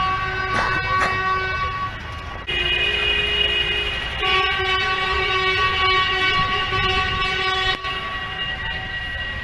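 Vehicle horns of a protest convoy held in long steady blasts, several at different pitches sounding together. The mix of horns changes about two and a half seconds in and again about four seconds in, with a short dip near the end.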